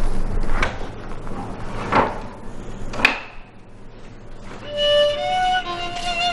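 A few slow footsteps, then a sharp click about three seconds in. Violin music comes in about halfway through and plays long held notes.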